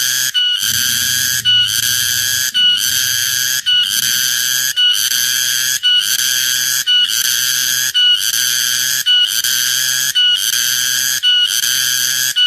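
Cicada calling loudly: a shrill buzzing song broken into repeated phrases about once a second, each starting with a brief higher note.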